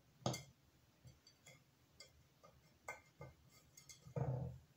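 Light scattered clicks and clinks as a plastic rhinestone mesh band is pressed and handled against a glass cake-stand base, with a louder handling noise near the end.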